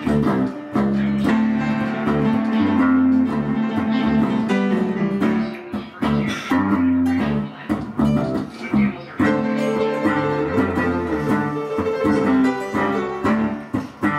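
Instrumental guitar music: plucked guitar notes over sustained low notes, played continuously.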